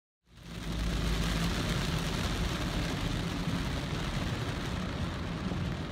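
Car driving on a rain-soaked road, heard from inside the cabin: a steady low engine and tyre hum under a hiss of rain and wet-road spray. It fades in just after the start.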